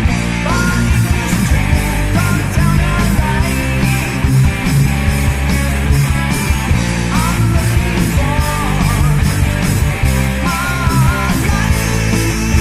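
Hard rock/heavy metal band playing: distorted electric guitars, bass guitar and a fast, steady drum beat, with a high melodic line that bends and wavers above them.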